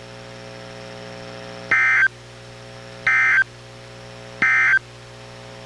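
Three short, identical bursts of warbling data tones: the SAME end-of-message code that closes an Emergency Alert System warning on NOAA Weather Radio, received on a weather radio. The bursts come evenly, about one and a half seconds apart, over a steady electrical hum from the receiver.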